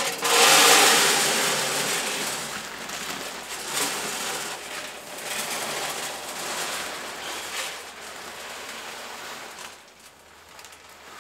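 Hardwood pellets pouring from a 40-pound bag into the hopper of a Recteq Flagship 1100 pellet grill: a continuous rushing rattle, loudest in the first couple of seconds, swelling again a few times and easing off near the end.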